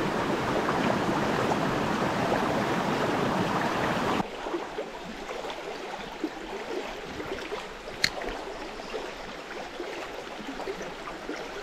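A small brook's running water, an even rush that drops suddenly about four seconds in to a quieter babble. Later there is a single sharp click.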